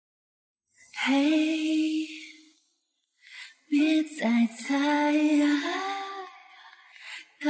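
A woman singing a slow song in long held phrases. The first phrase starts about a second in, and the second follows after a short pause.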